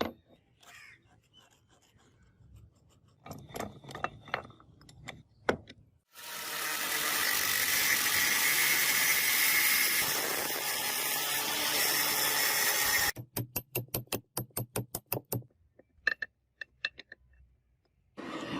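A power tool runs with a steady noise for about seven seconds, then stops and is followed by a quick even run of about a dozen sharp taps. A few scattered clicks and knocks come before and after.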